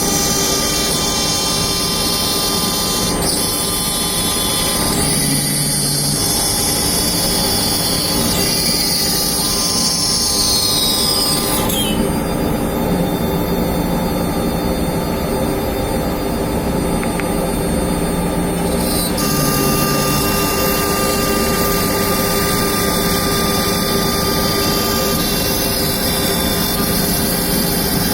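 CNC router spindle running with its bit cutting MDF: a loud, steady whine made of many tones. The high tones slide downward and then shift abruptly about halfway through, and shift again about two-thirds of the way in.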